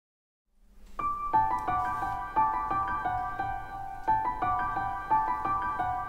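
Silence, then a piano melody starts about a second in and plays on as background music, a run of single struck notes.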